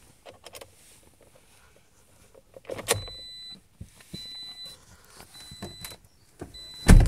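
Car warning chime beeping four times in a row, each beep about half a second long, after a clunk about three seconds in. Near the end a car door shuts with a heavy thud, the loudest sound, and the chime stops with it.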